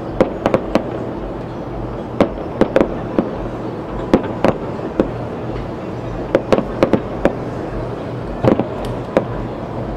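Aerial fireworks display heard from afar: about twenty sharp bangs of shells bursting at irregular intervals, sometimes two or three in quick succession, over a steady low rumble.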